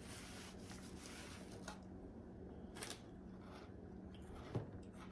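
Faint sounds of eating: a few soft clicks and rustles over a steady low hum.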